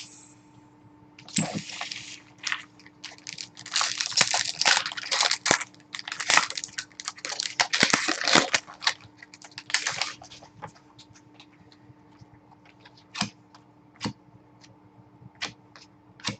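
Hockey card pack wrappers being torn open and crinkled, with cards handled and tapped. The crinkling is dense for several seconds in the middle, then thins to scattered clicks near the end, over a faint steady hum.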